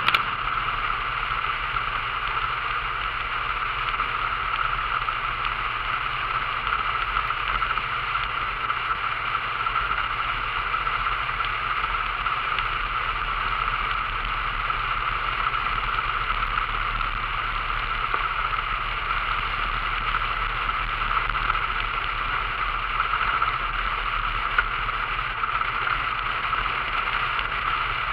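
Vintage Talbot car driving at a steady cruising speed: an even rush of wind and road noise over a low, steady engine hum, unchanging throughout.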